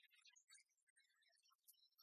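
Near silence, with only faint scattered high-pitched specks of noise.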